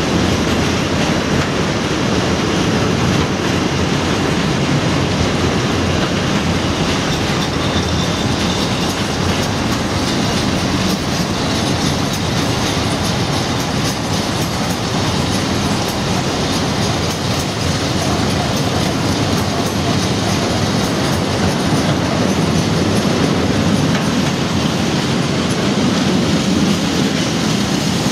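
Container flat wagons of a freight train rolling past, a steady noise of steel wheels running on rail.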